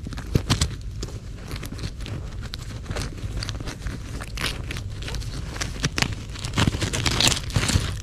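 Irregular crunching and crackling of ground debris being disturbed, with many sharp clicks scattered throughout and a denser cluster of them near the end.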